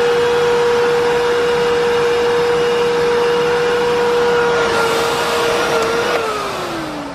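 Miele S8310 canister vacuum's motor running steadily with a high whine; about five seconds in, the rush of air grows louder, then about a second later the motor is switched off and winds down, its whine falling in pitch as it fades.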